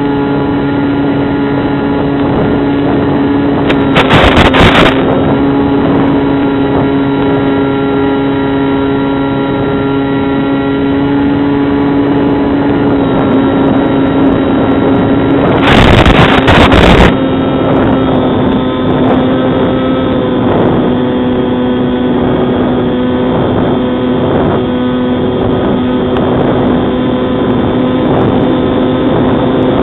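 Bixler 2 RC plane's brushless pusher motor and propeller running steadily in flight, heard through the onboard camera, its pitch stepping slightly a few times with throttle. Two loud bursts of hiss, each about a second long, break in about four seconds in and again about sixteen seconds in.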